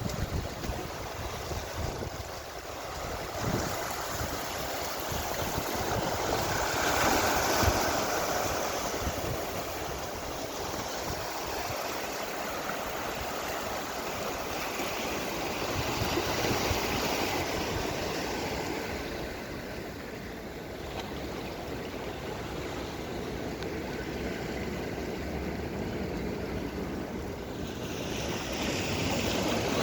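Sea waves washing onto the shore, a steady rush of surf that swells and eases every several seconds.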